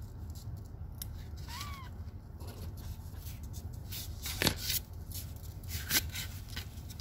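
Small pet nail clippers clicking as a kitten's claws are trimmed, with one short high kitten mew about a second and a half in. Two louder knocks come near the end, as the kitten is handled.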